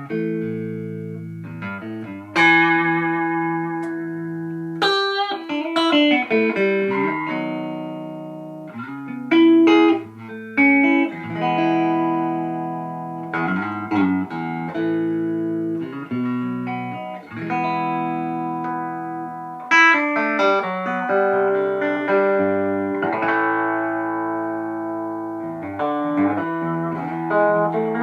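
Solo guitar playing an instrumental piece: plucked notes and chords that start sharply and ring out, one after another.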